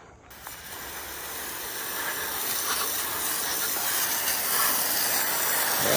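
Water spraying onto freshly sanded poplar slabs to wash off the sanding dust: a steady hiss that starts just after the beginning and grows gradually louder.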